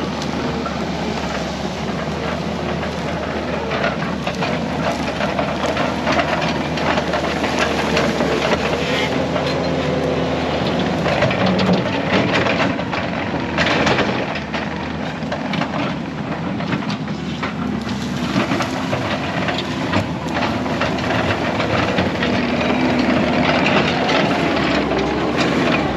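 Kubota SVL75 tracked skid steer's diesel engine running steadily under load while clearing a trail, with many sharp cracks and snaps throughout, typical of brush and branches breaking under the machine.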